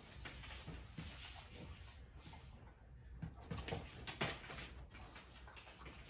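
A dog's paws pattering and scuffing on foam floor mats, with a louder thump about four seconds in as it lands from a jump.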